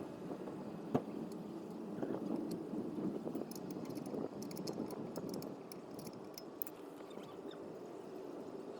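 Brake pads and their metal clips being handled and greased by hand: a low rustle of handling with small metal clinks, and one sharp click about a second in.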